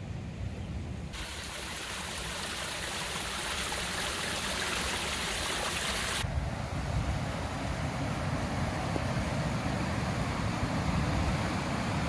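Rushing stream water running fast and foaming, a steady noise with a low rumble underneath. A brighter hiss cuts in about a second in and stops abruptly around six seconds in, after which the low rumble is stronger.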